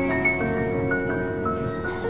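Gentle background music: a slow melody of held, bell-like keyboard notes.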